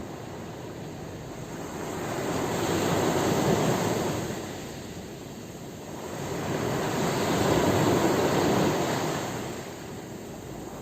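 Sea waves washing ashore: two slow swells of rushing surf noise, one building in the first few seconds and a second rising and fading after the middle.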